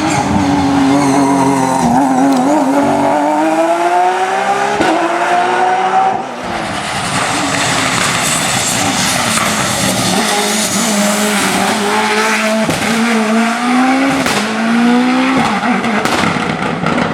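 Race car engines accelerating hard, the pitch climbing through the gears and dropping back at each upshift. There is a short dip in level about six seconds in, then another run of rising notes and shifts.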